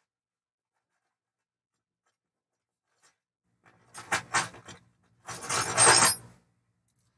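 Handling clatter: a quick run of rattling clicks about four seconds in, then a louder scraping rustle lasting about a second.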